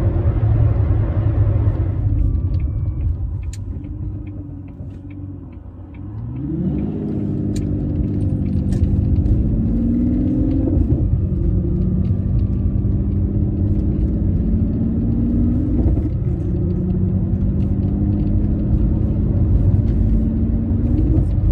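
Aston Martin Vanquish S's V12 heard from inside the cabin. It quietens briefly as the car slows, then accelerates hard, the engine note climbing through the gears with upshifts about halfway through and again about three-quarters of the way through.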